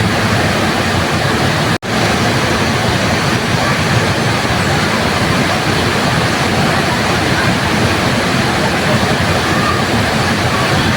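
Waterfall rushing in a steady, dense roar of falling water, broken by a split-second gap in the sound just under two seconds in.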